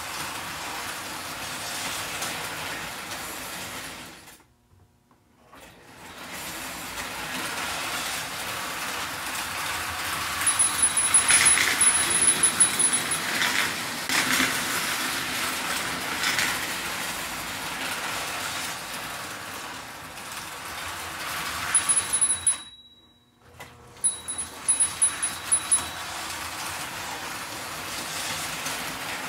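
American Flyer toy train locomotive running around the track pulling a load of cars: a steady electric-motor whir with wheels rattling on the rails. It goes quiet twice for about a second, and there is a burst of sharp clicks around the second stop.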